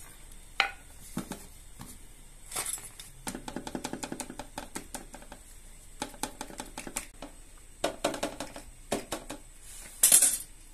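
A wooden scoring comb is pressed again and again into flatbread dough on a steel tray, making quick runs of light clicks and taps against the metal. A louder, noisier scrape comes near the end.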